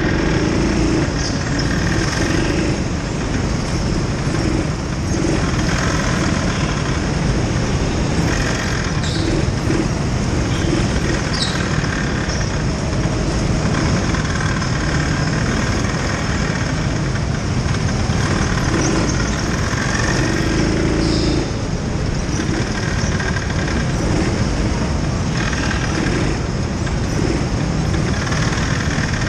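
Racing kart at speed on an indoor track, heard onboard: a continuous loud rush of motor, tyre and wind noise, with a few brief high squeals.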